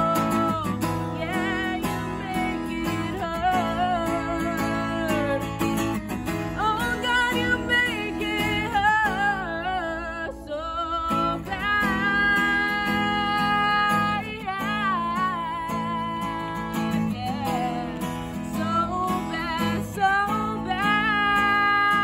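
A woman singing a pop song with vibrato, accompanying herself by strumming a Takamine acoustic guitar; several long held notes waver over steady strummed chords.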